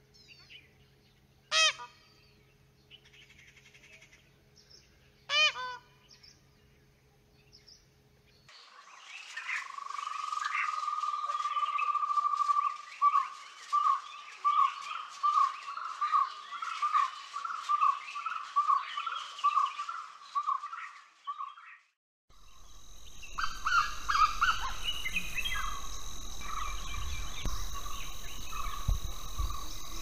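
Forest wildlife sounds. Two short, loud animal calls come a few seconds apart, then a bird repeats a rapid run of notes for about twelve seconds, and after a short break there is a steady insect buzz with scattered bird chirps.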